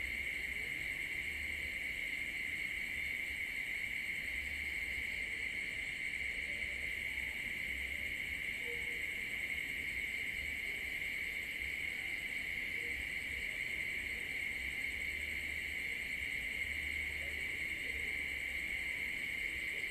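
Steady chorus of night insects, crickets chirring without a break, with a low rumble coming and going underneath.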